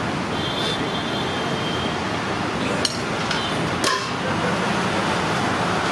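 Steady roadside traffic noise, with two sharp metallic clinks of stainless-steel serving containers and utensils about three and four seconds in.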